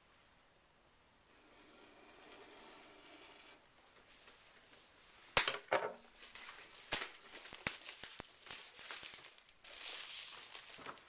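Packaging being unwrapped: plastic or paper crinkling and tearing in irregular rustles, with a sharp snap about five seconds in.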